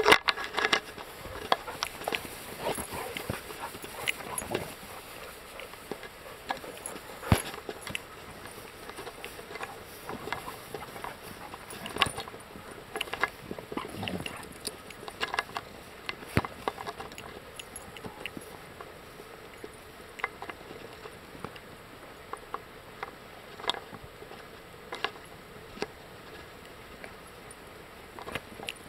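Dogs pushing a plastic football about in grass: irregular light taps and rustles, with a few sharper clicks scattered through.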